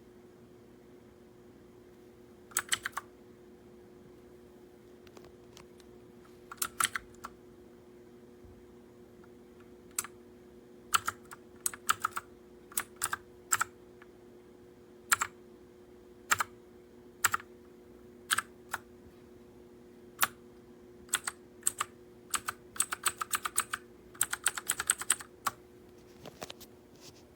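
Keys of a MageGee mechanical keyboard with clicky blue switches being pressed: single keystrokes and short runs of clicks, sparse at first, then in quick flurries near the end. A faint steady hum runs underneath.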